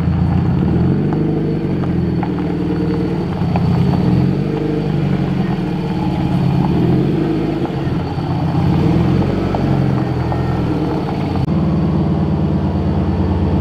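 Subaru WRX's turbocharged flat-four engine running as the car moves slowly at low revs. Near the end it settles into a steady, even idle.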